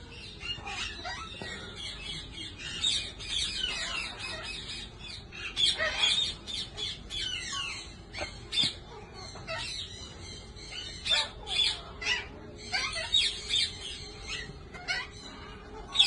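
Birds squawking and chirping in many short, irregular calls, some sliding in pitch.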